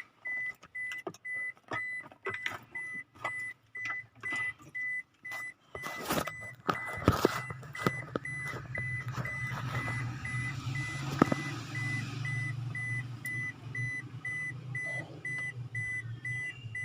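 Scattered clicks and knocks of a crankshaft position sensor being handled and fitted, over a steady, rapid electronic beeping at one pitch. A low steady hum comes in about six seconds in.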